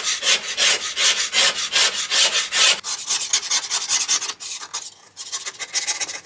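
Flat steel scraper rasping rust off a rusty hand-saw plate in quick, even strokes, about five a second, lighter after about three seconds: rough rust removal before sanding.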